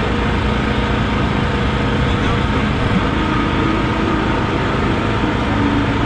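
Ferrari 360 Challenge Stradale's flat-plane V8 idling steadily, a dense low rumble with no revs.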